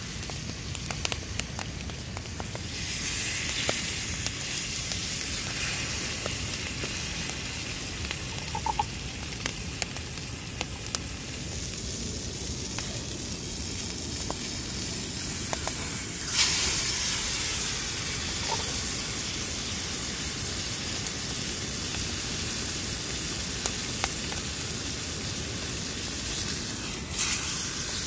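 Steak searing in a black skillet over an open wood fire, with a steady sizzle and scattered small crackles from the burning wood. The sizzle flares up suddenly about sixteen seconds in and again near the end.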